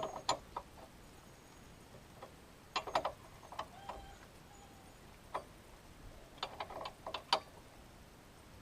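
Scattered light metallic clicks and clinks of a wrench working the tie-rod end nut, coming in small clusters. The tie-rod end's ball stud is spinning along with the nut instead of the nut coming off.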